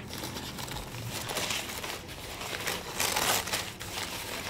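Newspaper and packing-paper wrapping crinkling and rustling as it is handled and pulled open by hand. The loudest rustle comes about three seconds in.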